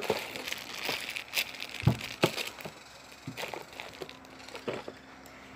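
Plastic-wrapped squishy toys crinkling and tapping as they are handled and picked out one by one, with the rustle heaviest in the first couple of seconds and then scattered light clicks.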